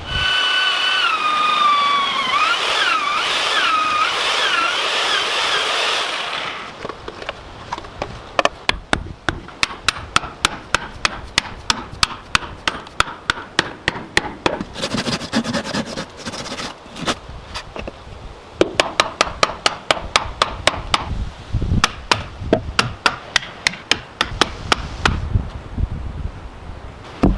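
A hand tool striking wood in a fast, even rhythm of about two to three blows a second, with short pauses. It is preceded by a few seconds of a whining power tool whose pitch wavers up and down.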